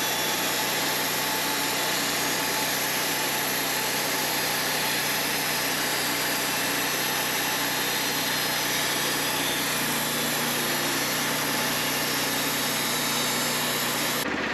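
An engine running steadily at idle, with a constant low hum under a broad mechanical noise.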